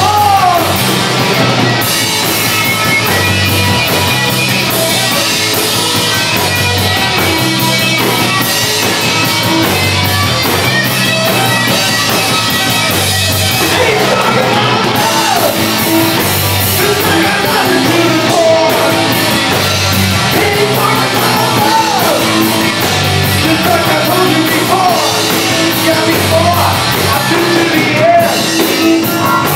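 Three-piece rock band playing live: a lead electric guitar plays a solo with bent notes over bass guitar and drums.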